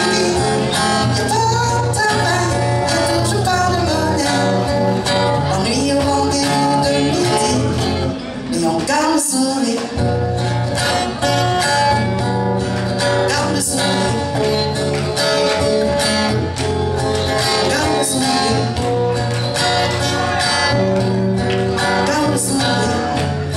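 A woman singing a reggae song live, accompanying herself on acoustic guitar. The low end of the music drops away briefly about nine seconds in.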